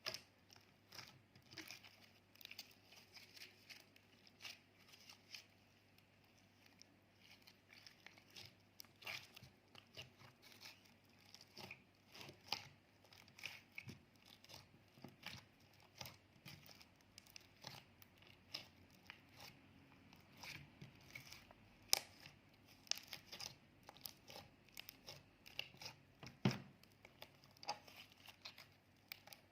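Clear slime being handled: a faint, irregular stream of sticky crackles and small pops, with a couple of louder snaps about two-thirds and nine-tenths of the way through.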